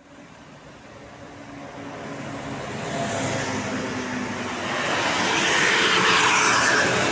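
A large road vehicle, most likely a tour bus, approaching and passing close by: engine and tyre noise build steadily and peak about six seconds in. No horn is sounded.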